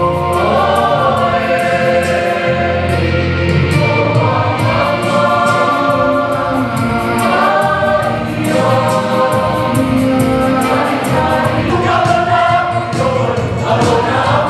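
A church choir of men and women singing a gospel song together in harmony, with a man singing into a microphone.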